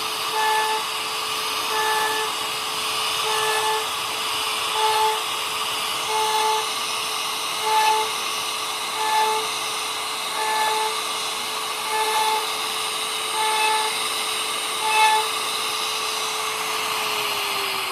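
Electric power carving tool running at a steady high pitch, swelling louder about every second and a half. Near the end its pitch starts to fall as the motor begins to spin down.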